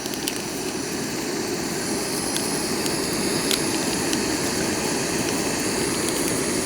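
Portable gas camping stove burner running steadily under a pot of water coming to the boil, with a few faint clicks.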